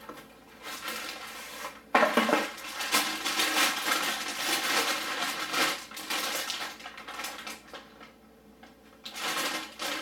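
Brown paper wrapping crinkling and rustling as a new motorcycle drive chain is pulled out of it, with the metal chain links clinking. It starts suddenly about two seconds in, is loudest over the next few seconds, dies down, and picks up again near the end.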